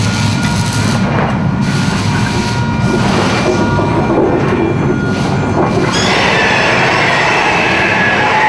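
Staged train-crash effects: loud rail-train running noise with steady metallic squealing, which shifts to a higher, stronger screech about six seconds in.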